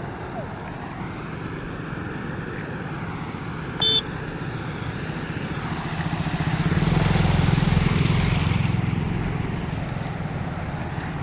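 Floodwater rushing over a road as a steady noise, with a motor vehicle's engine swelling and fading between about six and nine seconds in. A short, sharp beep sounds about four seconds in.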